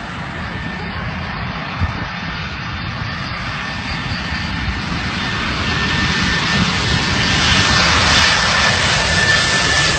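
Jet engines of a Boeing 747 on low final approach, a rushing noise growing steadily louder as it nears. A thin, steady high whine comes through more strongly in the second half.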